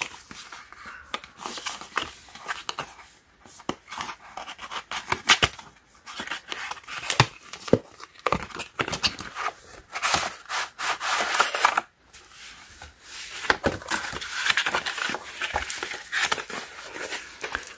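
A paperboard product box being opened by hand: flaps and a cardboard insert rubbing, scraping and clicking as they are pried and slid out, irregular and scratchy, with crinkling of plastic wrapping near the end.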